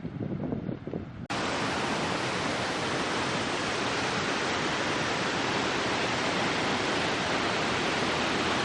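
Low gusty wind on the microphone, then about a second in an abrupt cut to the steady roar of a waterfall: a dense, even rush of falling water that holds without change.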